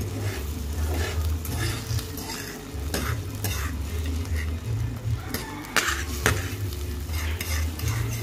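Beaten eggs sizzling in a frying pan as they scramble, while a metal fork stirs them and scrapes and taps against the pan in short clicks. The two sharpest taps come a little past the middle. A low rumble comes and goes underneath.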